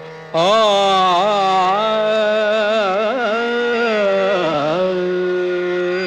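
Over a steady drone, a male voice enters about a third of a second in with the slow, ornamented opening phrase of a Kannada devotional song in Hindustani classical style, gliding and wavering in pitch, then settles on a long held note near the end.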